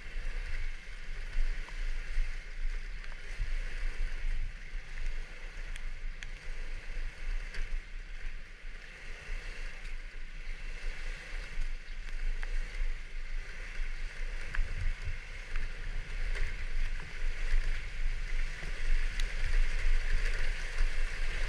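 Riding noise on a Kymco Like 125 scooter on a wet road: a steady rush of wind and tyre spray over a low rumble.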